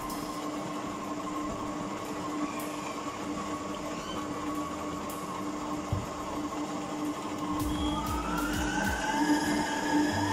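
Electric stand mixer running, its flat beater churning stiff, crumbly semolina dough in a steel bowl: a steady motor hum and whine, the whine rising in pitch about eight seconds in, with a few dull knocks from the dough.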